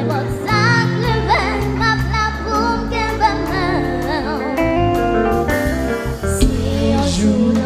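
A young girl singing into a microphone with a wavering vibrato, over a live konpa band playing sustained chords and a steady beat.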